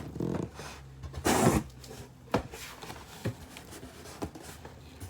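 Hands handling a new handbag and its packaging: rustling and rubbing, with one louder rustle about a second and a half in and a few light knocks after.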